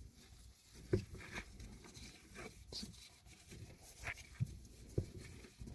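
Faint, scattered light clicks and knocks from hands handling the oil filter housing as it is threaded back on by hand.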